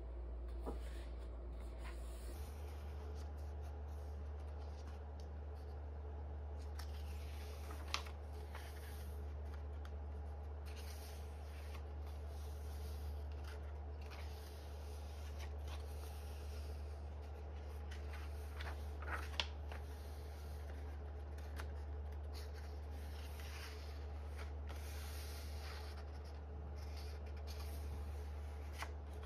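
Paper pages of a softcover photobook being turned and handled by hand, giving soft rustles and slides, with two sharper ticks about a third and two-thirds of the way through. A steady low hum runs underneath.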